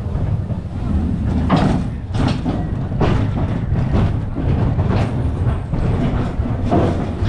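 A mine-train roller coaster rolling along its track with a steady low rumble and a clack roughly once a second.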